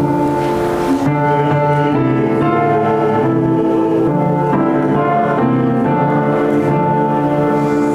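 Slow instrumental music on a keyboard instrument: held chords that change every second or so.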